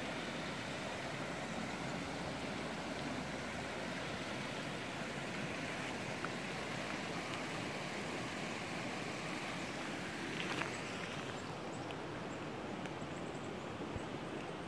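Small forest creek running over rocks beside the trail, a steady rushing. A short sharp sound about ten seconds in.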